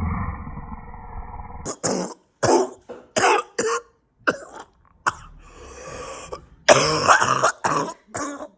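A person coughing: a string of short, sharp coughs, with the loudest and longest one about two thirds of the way through. A muffled low sound cuts off abruptly before the coughing starts.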